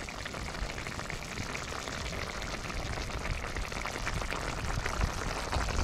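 A pot of stew boiling hard over a wood fire: a dense, rapid bubbling and popping as the gravy cooks down.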